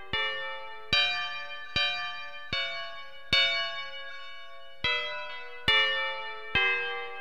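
Church bells ringing a sequence of notes, one struck about every 0.8 s, each a different pitch and each ringing on as it fades under the next, with one beat left out about halfway through.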